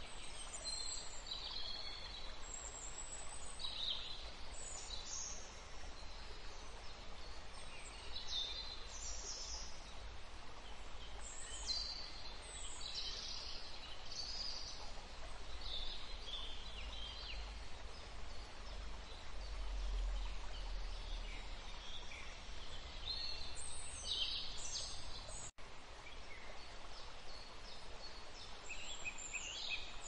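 Rainforest ambience: a steady hiss with many birds calling, short high chirps and whistles scattered throughout. The sound cuts out for an instant a little after 25 seconds in.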